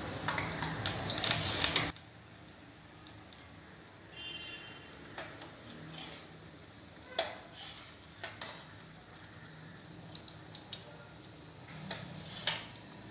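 Thattai dough disc slid into hot oil in a kadai: a loud burst of sizzling for about two seconds, settling into quieter frying. A metal slotted spoon clinks against the pan and tray several times.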